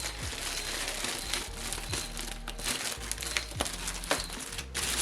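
Packaging of a new hood release cable crinkling and crackling as it is handled, with sharp ticks breaking through the rustle.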